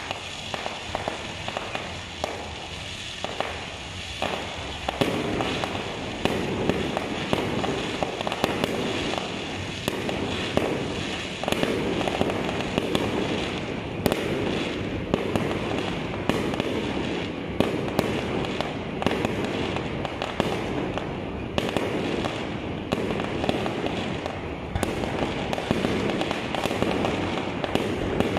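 Fireworks going off in rapid succession: continuous crackling and popping studded with many sharp bangs, growing louder about five seconds in.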